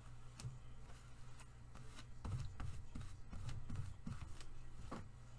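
VersaMark ink pad dabbed and rubbed onto a chipboard bookmark: faint scuffing and a few light clicks, with a run of soft dull taps about two seconds in that lasts about two seconds.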